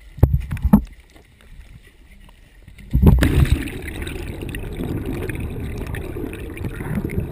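Two hard splashes or knocks of water against the side of a boat, then about three seconds in the microphone goes underwater: a steady, muffled low rush of churning water and bubbles.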